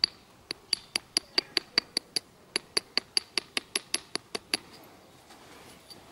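About twenty light, quick taps of a knapping tool on a flint preform, about five a second, each with a short high ring. The taps pause briefly about two seconds in, resume, and stop a little past four and a half seconds in.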